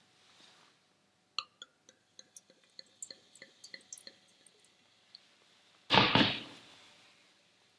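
Moscato being poured from a bottle into a stemmed wine glass: a run of small pinging drips and trickles for a few seconds. About six seconds in comes a louder sudden knock as the bottle is set down on the glass-topped counter.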